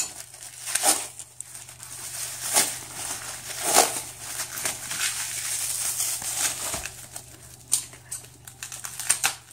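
Clear plastic stretch wrap crinkling and rustling as hands pull and peel it off a paper-wrapped roll, in irregular crackles with a few louder bursts.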